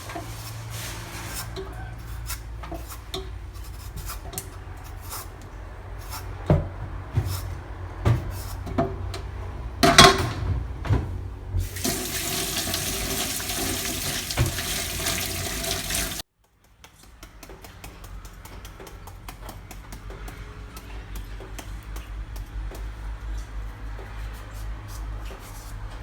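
Kitchen sounds: scattered clinks and a few sharp knocks, then a tap running into a sink for about four seconds, which cuts off suddenly. A quieter low hum with faint ticks follows.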